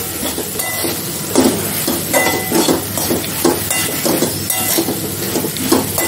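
Metal spatula scraping and knocking against a metal kadhai, about every half second, as sliced okra and ground spices are stir-fried in sizzling oil.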